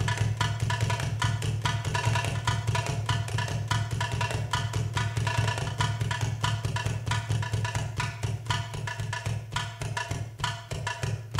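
Belly-dance drum-solo music: a fast rhythm of Middle Eastern hand drums, many sharp strikes a second, over a steady low drone.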